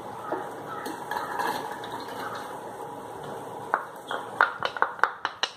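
Chopped onions being scraped out of a bowl into an aluminium pressure cooker with a wooden spatula, ending in a quick run of sharp knocks of the spatula against the bowl and pot rim in the last two seconds. A steady low hiss runs underneath.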